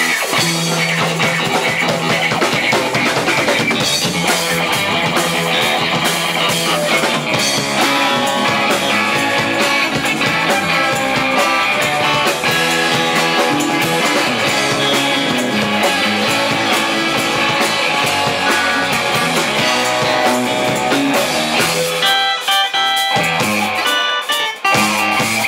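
Live band playing an upbeat instrumental: electric guitar, electric bass, Nord Electro 3 keyboard and a drum kit. A few seconds before the end the bass and drums drop away briefly, leaving the higher keyboard and guitar lines.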